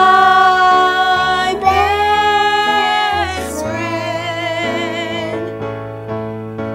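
A woman singing a slow worship song over instrumental accompaniment, holding three long notes in turn.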